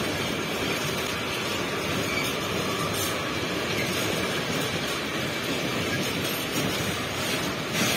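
Tank wagons of a freight train rolling past, their steel wheels on the rails making a steady rolling noise.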